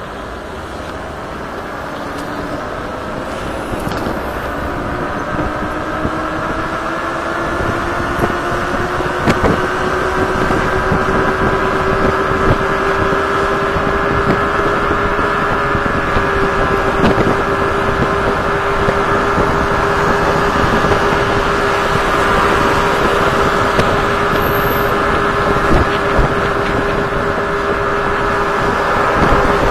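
Kaabo Wolf Warrior 11 electric scooter's two hub motors whining under way. The pitch and loudness climb slowly over the first ten seconds or so as it speeds up, then hold steady at cruising speed, over wind and road noise.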